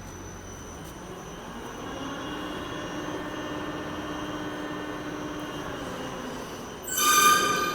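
Steady machinery drone that swells a little after a couple of seconds, then a loud, sudden high-pitched tone with several pitches, like a horn or squeal, near the end.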